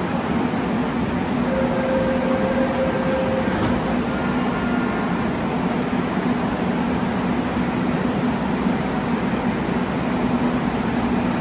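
Seoul Subway Line 4 electric train standing at the platform with its equipment humming steadily. A short steady tone sounds about one and a half seconds in and lasts about two seconds.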